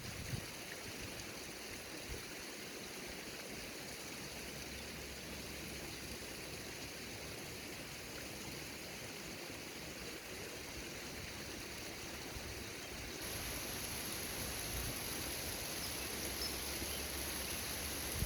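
Steady rushing of wind, which grows slightly louder and brighter in its hiss about thirteen seconds in.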